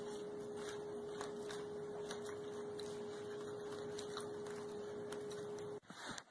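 A steady tone of one unchanging pitch, like a hum, held over faint hiss and cutting off abruptly near the end.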